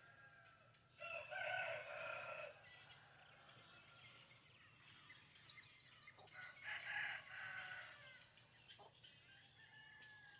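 Rooster crowing twice: one crow about a second in and another about six and a half seconds in, each about a second and a half long.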